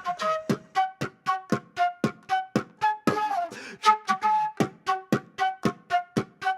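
Background music with a quick, steady beat of percussive hits, about four a second, under a short-note pitched melody.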